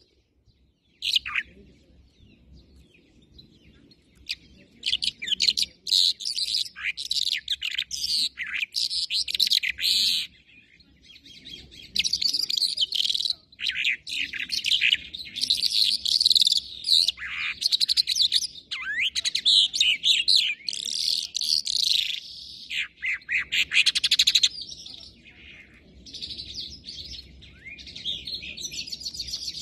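Caged songbird singing long runs of fast, high, varied chirps and trills, broken by short pauses.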